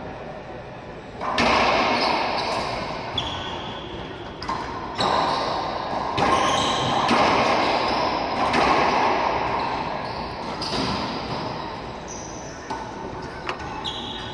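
Racquetball rally: the rubber ball repeatedly hit by racquets and bouncing off the walls and floor, each hit echoing around the enclosed court, with short high sneaker squeaks on the hardwood floor.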